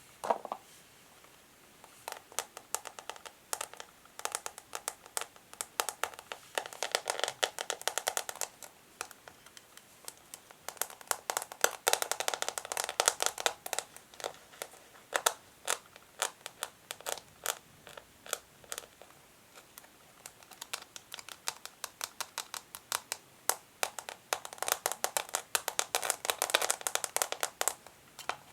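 Natural fingernails tapping and scratching a tiny crinkly plastic bag. Scattered sharp taps run throughout, with dense runs of crinkling and scratching a few times.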